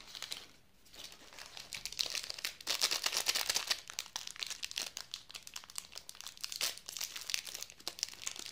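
Plastic wrapper of a mini Snickers bar crinkling as it is handled and opened: a short rustle at the start, then dense crackling from about a second in.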